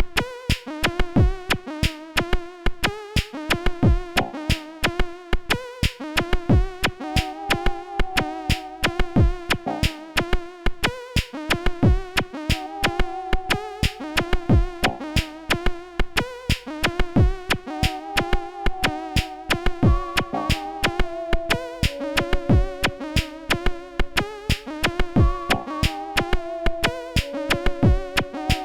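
Electronic music: a drum-machine beat with synthesizer notes over it.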